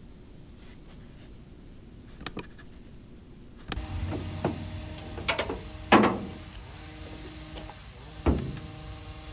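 Metal clanks and rattles of a Ford F-250 Super Duty's steel tailgate being lifted and fitted onto the back of the truck bed, several sharp knocks with the loudest about six seconds in. A low steady hum runs underneath from about four seconds in.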